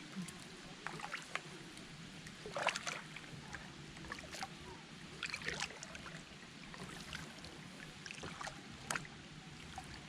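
Kayak paddle strokes: water splashing and dripping off the paddle blades in short bursts every second or two.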